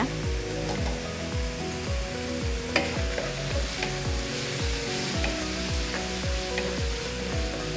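Sliced bell peppers and ground spices sizzling in a frying pan while being stirred with a wooden spatula. Background music with a steady beat plays over it.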